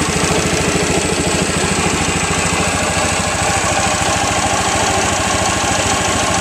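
1934 Stover MV-5 two-cylinder stationary engine running steadily, with a fast, even beat of exhaust pulses.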